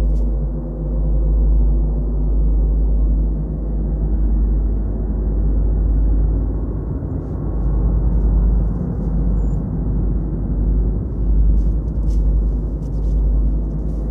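A loud, steady low drone: a deep rumble under a stack of even overtones that holds without a break, with a few faint ticks above it near the end.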